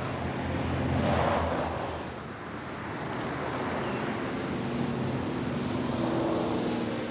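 Motor traffic: vehicle engines running steadily, with a second engine growing a little louder and higher near the end.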